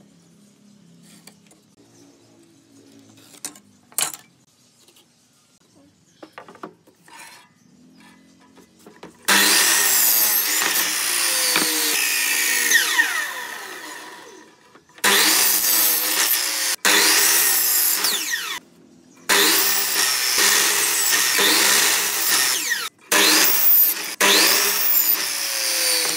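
Miter saw cutting pine boards: after a quiet start with a few light knocks from handling the wood, the saw runs from about nine seconds in through several cuts, in loud stretches broken by short gaps, the motor whine falling as it spins down.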